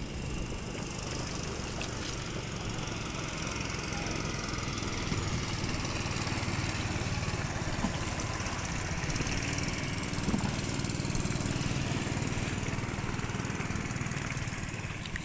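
A small boat motor running steadily, growing somewhat louder about halfway through.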